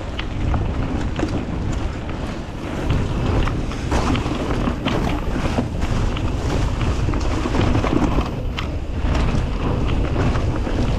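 A mountain bike ridden fast down a dirt trail: wind buffeting the microphone over the tyres' rumble, with frequent short knocks and rattles from the bike over bumps.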